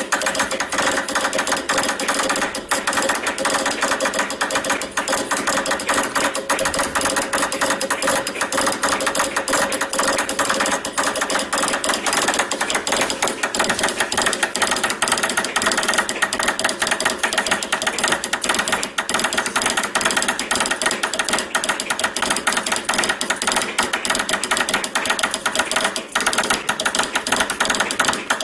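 Morse telegraph key worked at high speed, a fast, continuous stream of sharp mechanical clicks.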